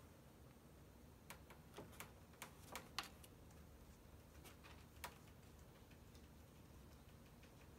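Faint, scattered light clicks and taps, a quick cluster in the first few seconds and one more a couple of seconds later: cats' claws and paws touching the bars of a wire cage. Otherwise near silence.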